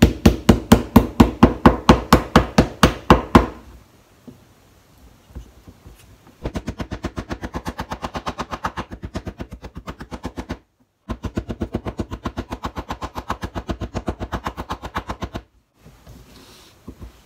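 Wooden pestle beating boiled burdock roots on a plastic cutting board in quick knocks, about seven a second, in three runs with short pauses between; the first run is loudest. The beating breaks the burdock's fibres so that it absorbs the seasoning.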